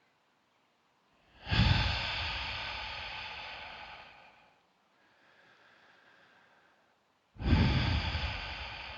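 A person breathing loudly close to the microphone: a long, forceful exhale about a second in, then a quieter in-breath, then a second long exhale near the end. Each exhale starts with a puff of breath on the mic and fades out over a few seconds.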